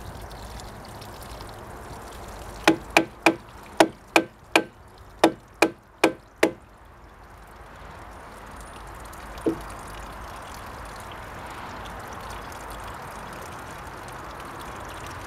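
A wooden plug being hammered into the outlet of a plastic water tank with a hatchet: about eleven sharp knocks at roughly three a second, then one more knock a few seconds later. Water trickles from the leaking outlet throughout, louder in the second half. The leak comes from the tank's tap, burst by frost.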